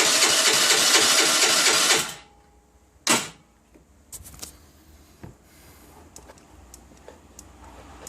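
Electric starter cranking the Baotian Tanco's 50cc four-stroke scooter engine in an even, chugging rhythm without it catching, the sign of a hard start. The cranking stops abruptly about two seconds in. A sharp click follows about a second later, then a few faint ticks.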